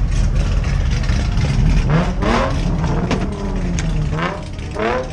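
Car engines running in a drift pit area: a steady low idle, with a run of quick revs that rise and fall in pitch from about two seconds in.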